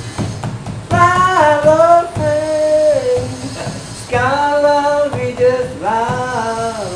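A high voice singing two long, drawn-out phrases. Each phrase holds its notes and slides between pitches, the first starting about a second in and the second about four seconds in.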